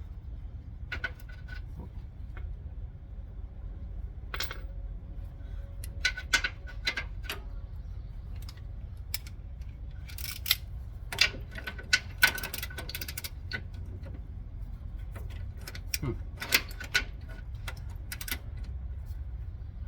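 Wrench and metal hardware clicking and clinking in irregular bursts as the bolts of a steering stabilizer shock on a Ford Super Duty front end are tightened, over a steady low hum.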